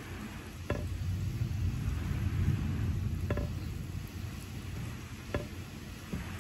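Steady rain with a low rumble of distant thunder that swells about a second in and fades toward the end, and a few sharp ticks scattered through it.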